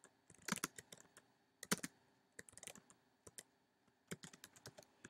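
Faint typing on a computer keyboard: short runs of key clicks with brief pauses between them.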